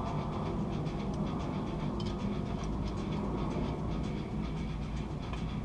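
A steady low rumble of background noise, with faint light metallic ticks and scrapes as a transmission bolt is worked by hand into its hole.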